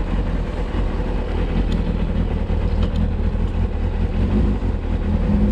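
Sport motorcycle engine idling steadily with a low, even hum, just after being started.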